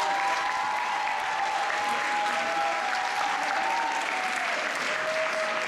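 Audience applauding steadily, with a few long cheering calls held over the clapping.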